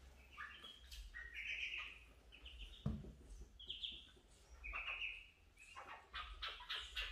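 Ducklings peeping, a run of short high chirps that come faster near the end, with one sharp thump about three seconds in.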